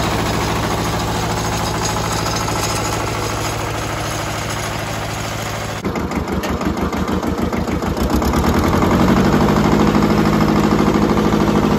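Mitsubishi MT372 compact tractor's three-cylinder diesel engine running as the tractor drives along. About halfway through it is heard closer, with its firing pulses more distinct, and it grows louder a couple of seconds later.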